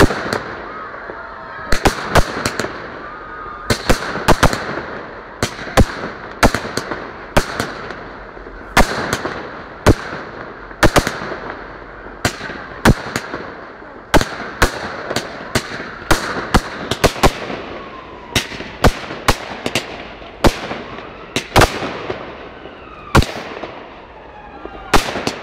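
Aerial fireworks display: a steady run of sharp bangs from bursting shells, one or two a second, over a constant crackle, with thin whistles gliding up and down between them.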